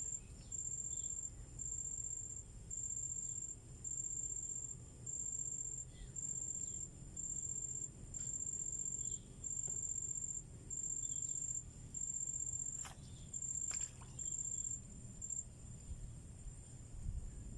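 An insect calling in a steady series of high, buzzing chirps, about three every two seconds, that stops about fifteen seconds in. There is a low rumble underneath and a couple of sharp clicks near the end.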